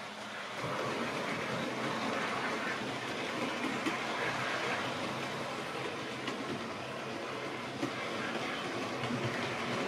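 An OO gauge model train of coaches on metal wheels rolling past close by on sectional track. A steady rolling noise grows louder about half a second in, with occasional brief clicks.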